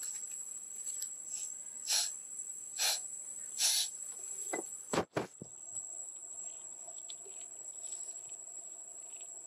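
Insects droning steadily at a high pitch, with three short bursts of noise in the first four seconds and a sharp click with a brief drop-out about five seconds in.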